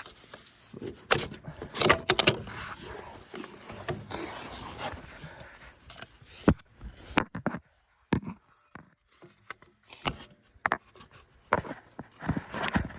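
Irregular knocks, clicks and scrapes of a PTO driveshaft being handled and lined up for fitting.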